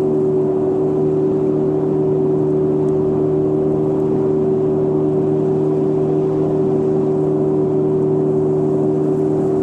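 Boat motor running steadily under way, a loud, even hum whose pitch holds constant.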